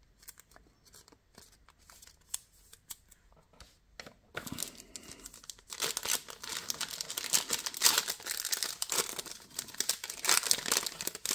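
A foil trading-card pack (Panini Phoenix basketball) crinkling and tearing as it is ripped open, starting about four seconds in after a few faint ticks of card handling.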